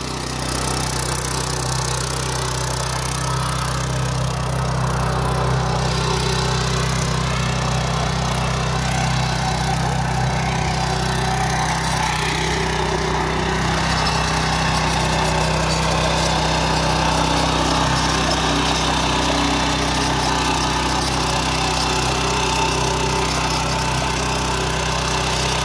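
Walk-behind power tiller's small engine running steadily under load as its rotary tines work through the soil.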